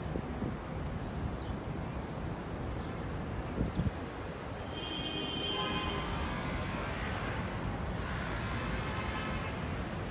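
City street traffic: a steady rumble of passing vehicles, with a brief high-pitched tone about halfway through and a vehicle swelling past near the end.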